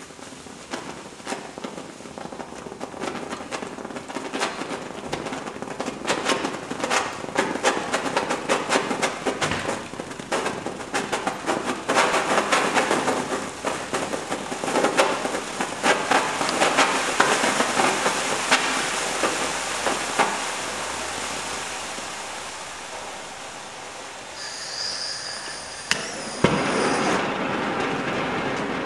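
A vigorous hydrogen-generating reaction of chemicals and water in a metal can, fizzing with dense crackling and popping that grows steadily louder as it boils up and foams over. Near the end there is a sharp crack, then a steady rushing as the escaping hydrogen burns in a tall jet of flame from the can.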